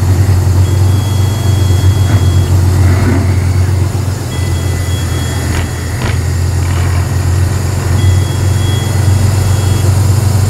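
Tatra 813 8x8 truck's air-cooled V12 diesel running under load as the truck crawls over a sandy crest. It is a steady, loud, low rumble that eases a little midway.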